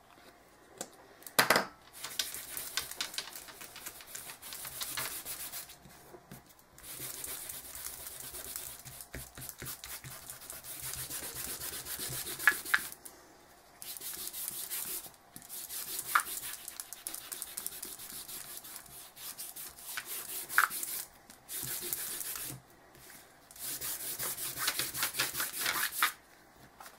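Hands rubbing and smoothing water-soluble crayon colour into a chipboard panel, skin sliding over the board in spells of a few seconds with short pauses. A sharp knock about a second and a half in.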